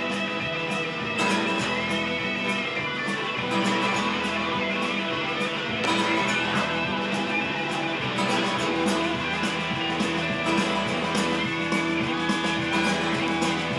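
Rock band playing: strummed guitars over a steady drum beat.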